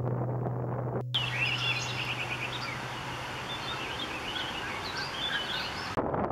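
Birds chirping and singing in short, rapid high notes over a steady outdoor hiss. The chirping cuts in after a brief gap about a second in, with a low music drone fading beneath it, and gives way to wind noise on the microphone near the end.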